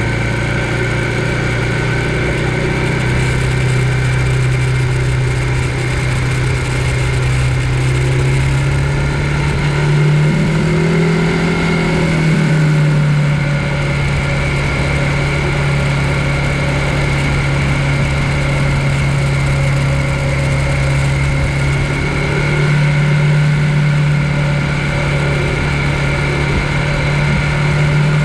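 E-bike mid-drive motor humming steadily under way, its pitch rising a little about ten seconds in and again near the end, over a low rumble.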